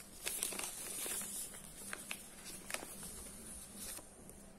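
Fabric rustling as hands handle a white curtain and unfold its printed care label, with a few brief crinkles and soft clicks scattered through.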